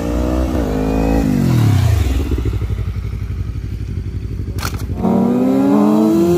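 Motorcycle engine under throttle during wheelie riding. The revs fall away over the first second or two and the engine chugs at low revs, with one sharp click a little past halfway. The revs climb again near the end.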